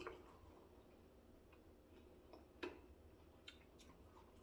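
Near silence with faint drinking sounds, sips and swallows of otai from plastic cups, and a few small clicks, the sharpest about two and a half seconds in.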